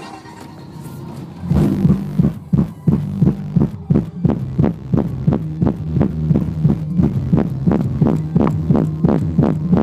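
Car audio subwoofer playing a song's bass drop: deep bass pulses, about three a second, that come in about a second and a half in and carry on steadily, heard through a phone microphone inside the car.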